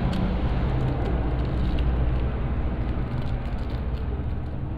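Foil packet crinkling and tearing as it is worked open by hand and with a screwdriver tip, over a steady low background hum.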